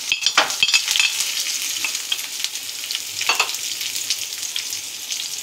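Chopped onion and garlic sizzling in hot oil with dried red chillies and nigella-fenugreek seeds, a tempering (bagar) for dal. The sizzle crackles hard in the first second as they hit the oil, with a louder burst a little past three seconds in, then settles to a steady sizzle.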